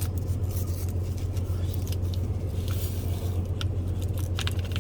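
A steady low hum with a few short crackles and clicks of a packet being handled, about three and a half seconds in and again near the end.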